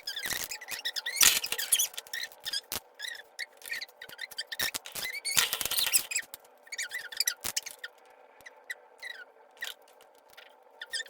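Beyblade Burst spinning tops clicking, rattling and scraping against each other and the plastic stadium wall over a faint steady whir, busy at first and thinning to occasional clicks as the spin dies down.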